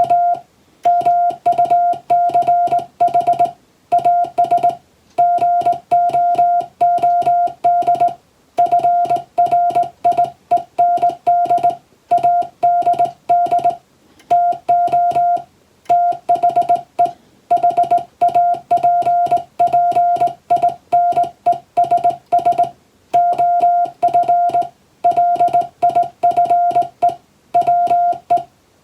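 International Morse code sent as a single steady tone keyed on and off in short dots and longer dashes, grouped into letters and words with brief pauses between groups: English-language telegram practice text.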